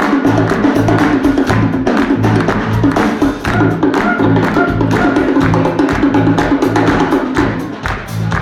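Zurnay (Uyghur surnay, a double-reed shawm) playing a fast, ornamented melody over a steady, busy drum beat.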